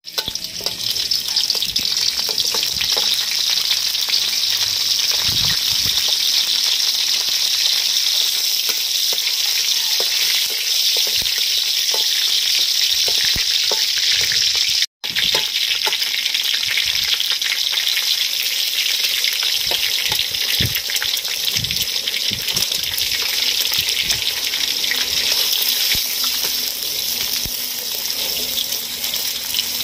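Hot oil sizzling steadily in a metal wok as chopped garlic and then eggs fry in it, with a metal spatula scraping and clicking against the pan. The sound breaks off for an instant about halfway through.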